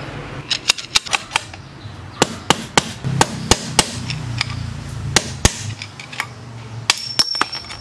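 Hammer blows on a long drift pushed through a motorcycle's steering head tube, knocking out the lower steering-head bearing race. The sharp metal strikes come in irregular clusters, about twenty in all, with a brief high metallic ring near the end.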